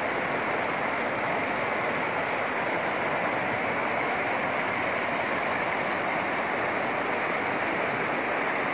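Floodwater flowing steadily over a submerged road, an even, unbroken sound of moving water.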